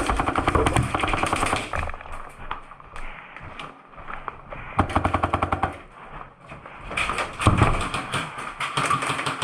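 HPA airsoft rifle firing rapid full-auto bursts: three main strings of fast, even shots, about a second or two each, with short pauses between.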